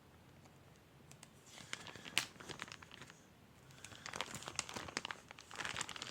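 Crinkling and rustling of material being handled, in two bouts, the first starting about a second and a half in and the second about four seconds in, each made of quick crackles and sharp little clicks.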